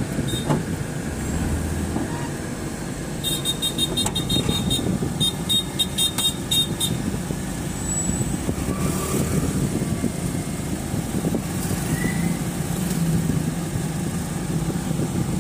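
A car engine idling steadily, heard from inside the car with the driver's window open. From about three seconds in, a rapid run of high ticking beeps lasts for a few seconds.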